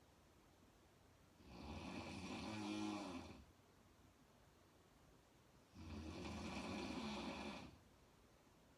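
A woman snoring: two long snores about four seconds apart, each lasting about two seconds, with a low pitched tone over a breathy hiss and quiet breaths between.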